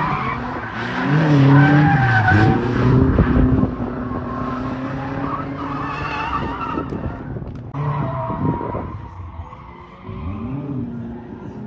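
Nissan 240SX drift car's engine revving up and down while its tyres squeal through a slide. The revs and noise are strongest in the first few seconds and ease off briefly near the end.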